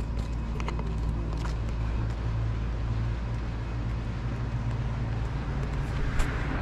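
A motor vehicle's engine running with a steady low hum, with a few light clicks and one sharper click near the end.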